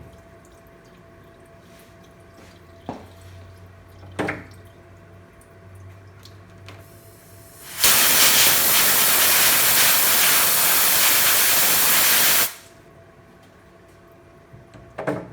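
Compressed-air blow gun blasting, a loud steady hiss of about four and a half seconds that starts and stops abruptly, clearing chips after a chamfer pass on a mill. Before it, a couple of light knocks over a low shop hum.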